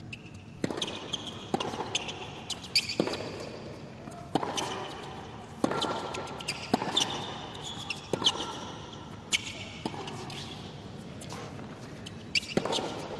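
Tennis ball being struck back and forth in a rally on a hard court: a sharp racquet-on-ball knock and bounce roughly every second or so. Short high squeaks come between the shots, over low crowd noise in the arena.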